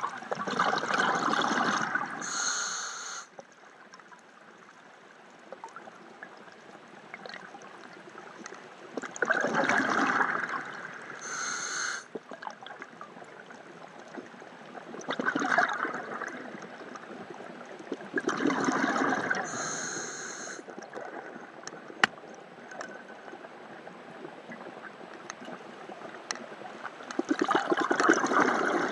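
Scuba diver breathing through a regulator, heard through an underwater camera housing: five rushes of exhaled bubbles, several of them followed by a short, high hiss from the regulator.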